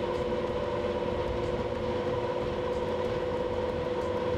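Drilling rig drawworks running, its electric-driven drum reeling on steel drilling line, with a steady mechanical hum and a constant whine.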